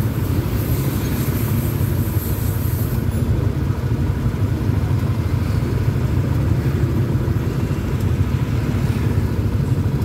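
Several small motorcycle engines idling at a stop, a steady low rumble, the nearest being the single-cylinder Yamaha Jupiter MX King 150 that the rider is on.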